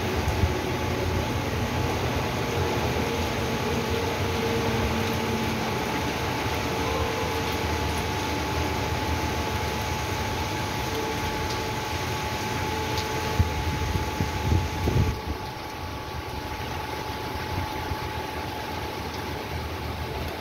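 Steady rain falling on a flooded street and splashing into puddles, over a steady mechanical hum. The sound drops and dulls about three-quarters of the way through.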